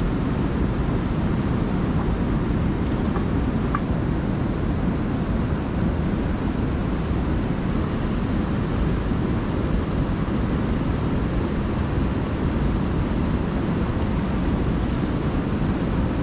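A nearby river rushing steadily, a constant deep noise without breaks.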